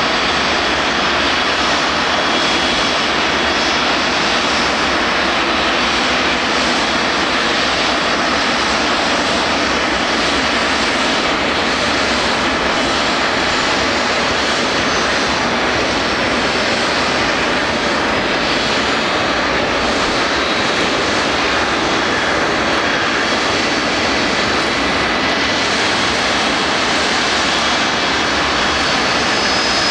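Aircraft engine noise at an airshow: a loud, steady rush with a faint high whine that slowly drops in pitch partway through.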